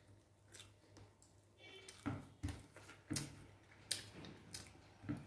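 Quiet eating sounds from a piece of chicken eaten by hand: about half a dozen short, soft clicks and smacks from chewing and handling, starting about two seconds in, over a faint steady hum.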